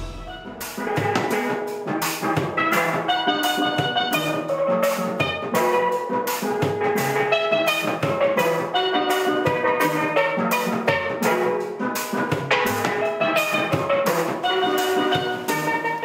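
Caribbean steelpan music with drums: a quick run of bright, ringing struck notes over a regular beat.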